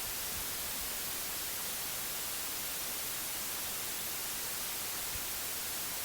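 Steady white noise: an even, unchanging hiss, brighter in the high end, laid under a sleep recording as a relaxation bed.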